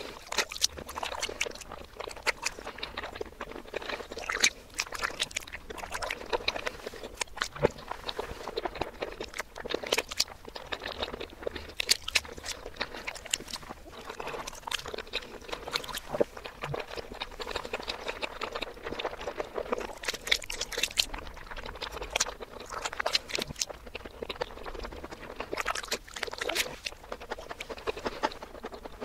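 Close-miked eating sounds of whipped cream and chocolate: wet mouth smacks, chewing and crunching, as a dense, irregular stream of clicks. The eating is played in reverse.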